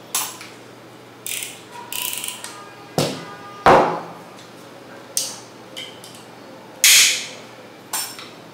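Scattered clicks and knocks of a utility knife and small tools being picked up, handled and set down on a table, about eight separate sharp sounds with a heavier knock a little before the middle.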